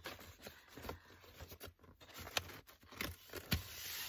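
Handling noise from a bulky handmade junk journal as its elastic closure band is pulled off: irregular rustling and scraping of paper and cover, with a few light taps, a couple of them louder past halfway.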